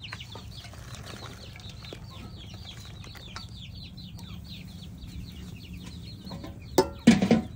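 Birds cheeping rapidly, short high falling notes about five or six a second, over a low steady hum. Near the end there is a loud sudden knock that rings briefly.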